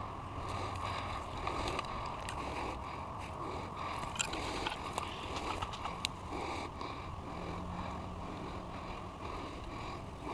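Steady low rumbling noise, like wind or handling noise on a body-worn camera, with a few sharp clicks between about four and six seconds in.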